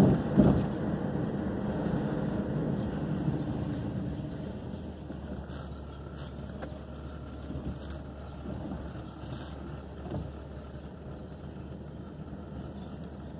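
Car running and rolling slowly, heard from inside the cabin as a steady engine and tyre rumble that gets quieter after about four seconds. A sharp thump comes about half a second in, with a few lighter knocks later.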